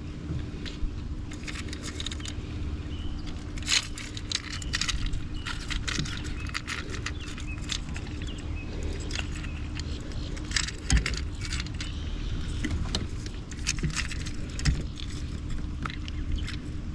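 Irregular metallic jangling and clicking of fishing tackle, a lure's hooks being handled while working a swallowed hook free of a fish.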